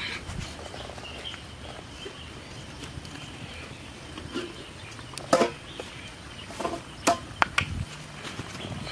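A handful of sharp knocks and clatters of cooking utensils, bunched in the second half, over a steady outdoor background hiss.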